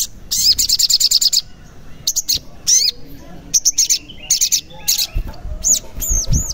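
Olive-backed sunbird (sogon) singing: sharp high-pitched chirps and short fast trills, with a quick run of notes about half a second in. A few low thumps come near the end.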